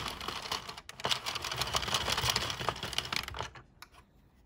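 A 22-needle plastic circular knitting machine being cranked round, its needles clicking rapidly like typing. The clicking stops about three and a half seconds in.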